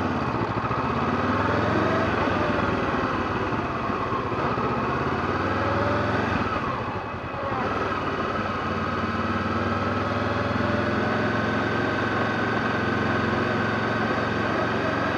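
2013 Honda CB500X's parallel-twin engine, fitted with a Staintune exhaust, running at low revs as the motorcycle rolls slowly along. Its note dips briefly a little past the middle, then holds steady.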